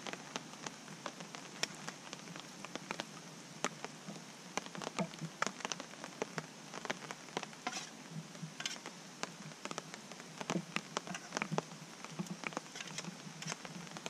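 Rain falling on a tarp: a steady hiss with many irregular drop taps.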